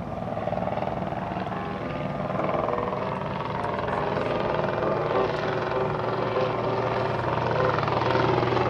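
Piston engines and propellers of replica WWI fighter planes in a mock dogfight: a steady drone that grows gradually louder, its pitch shifting as the planes manoeuvre.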